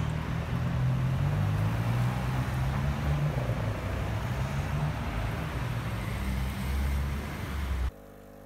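A motor vehicle running: a steady low engine hum under a loud rushing noise, which cuts off suddenly near the end, leaving a quieter hum.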